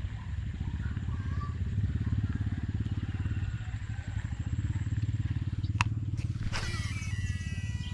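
A steady, low, pulsing engine-like rumble runs throughout. About six seconds in, a baitcasting reel clicks once, and then its spool whirs with high tones sliding down as the lure is cast.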